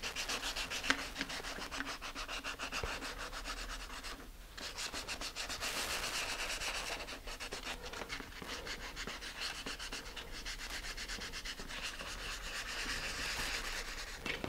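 Sandpaper on a sanding block rubbing along the trailing edge of a filler-coated model rocket fin in quick back-and-forth strokes, with a short pause about four seconds in. The fin is being sanded smooth before painting.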